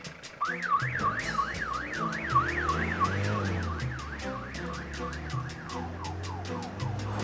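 Police van siren wailing fast up and down, about three times a second, starting about half a second in and fading near the end, over background music with a steady beat.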